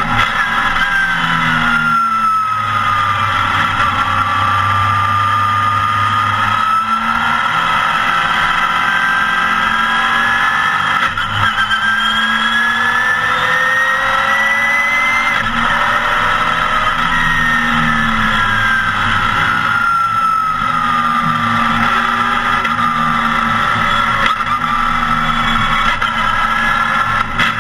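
Porsche 914 race car engine at racing speed, heard loud from inside the cockpit. Its revs climb under acceleration and fall away again several times, with short breaks at the gear changes.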